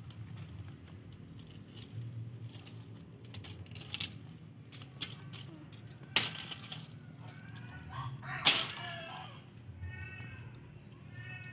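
A sickle hacking and rustling among stiff pineapple leaves while a pineapple is cut from the plant, with two sharp cracks, the second the loudest. Animal calls sound in the background, ending in a short run of repeated cries.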